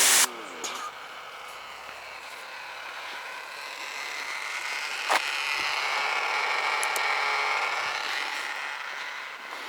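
Ryobi 36V cordless pressure washer: the loud spray cuts off abruptly just after the start. A much quieter motor whine follows, swelling and fading, with a few light clicks.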